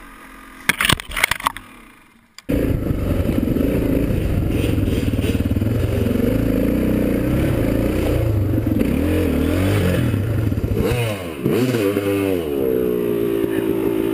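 Off-road motorcycle engine revving hard over a rough trail, its pitch rising and falling with the throttle and climbing to a held high rev near the end. A few sharp knocks come about a second in, before the engine starts about two and a half seconds in.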